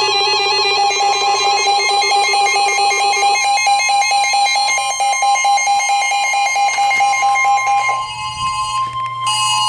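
Emergency alert tone ahead of a tornado warning: a loud, fluttering electronic alarm tone that changes about eight seconds in to a steady single tone, with a higher second tone joining near the end.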